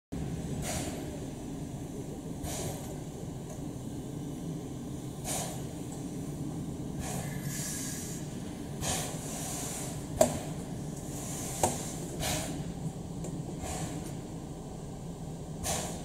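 C11 steam tank locomotive standing with its train, giving off short puffs of hissing steam every second or two over a steady low rumble. Two sharp metallic clanks come about ten seconds in and again a second and a half later.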